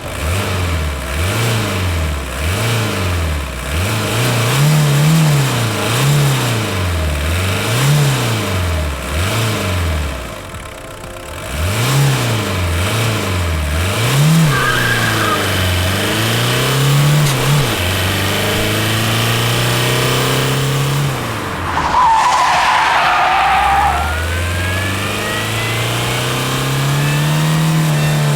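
Volkswagen Golf II engine revved up and down over and over, each rev lasting about a second, then held at steady speed. Later a brief high tyre squeal is heard, and the engine pulls up again near the end.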